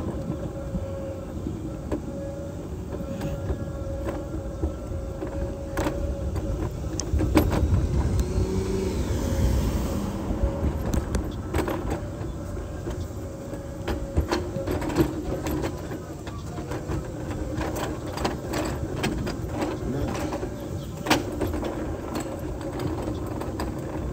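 Power wheelchair driving along a concrete sidewalk: a steady motor whine over the low rumble of the wheels, with scattered sharp clicks and knocks as it rolls.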